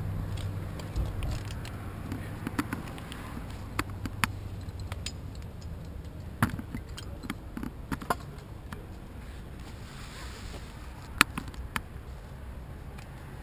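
Scattered sharp clicks and knocks of tree-climbing gear, a metal carabiner and rope hardware, with scraping against bark as the climber shifts position in the tree.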